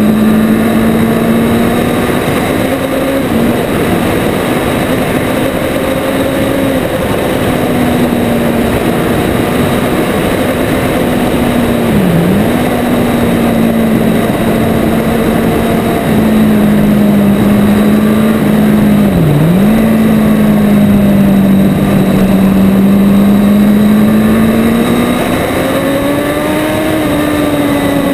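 Motorcycle engine running at a steady cruising speed with wind rush, heard from a camera mounted on the bike. The engine note dips sharply and recovers twice, then rises and settles again near the end.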